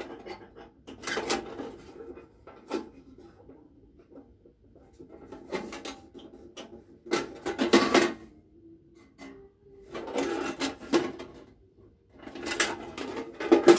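Empty sheet-steel tool box being handled and turned over, its metal body and fittings clanking and scraping in about five short bouts of clatter with quiet gaps between.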